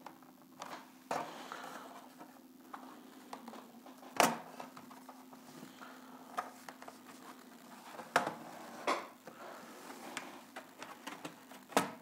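Plastic clips of a laptop's bottom case snapping loose as the shell is pried apart by hand: sharp plastic clicks and knocks spaced several seconds apart, the loudest about four seconds in, around eight seconds and near the end, over a faint steady hum.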